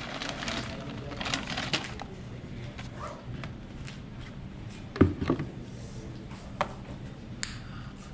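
Plastic bag of shredded cheese crinkling for about two seconds as the cheese is poured out. This is followed by a sharp knock about five seconds in and a few lighter knocks as things are put down on the counter.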